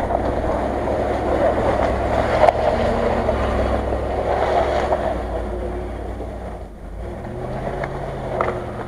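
Land Rover Discovery's engine running under load as the off-roader pulls through mud, with one sharp knock about two and a half seconds in; the engine fades as it drives off, about six and a half seconds in.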